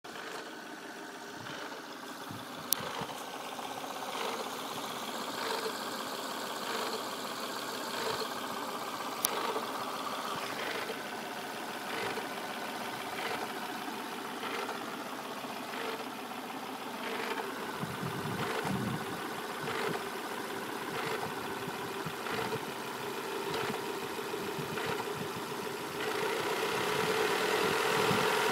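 A first-generation Volvo S40/V40 1.8-litre four-cylinder engine idling warm. It makes a strange rattling sound with evenly repeating knocks over a steady hum, a noise that appears once the engine is warm. Two sharp clicks come early on, and the engine grows louder near the end.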